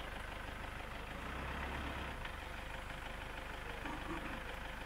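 Vehicle engine idling steadily, a low even rumble, with a faint hiss of background noise above it.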